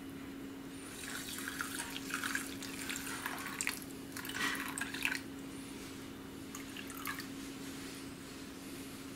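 Water poured from a glass bowl into a glass food container, splashing and trickling in uneven pours for the first half, then a few fainter drips and clinks. A steady low hum runs underneath.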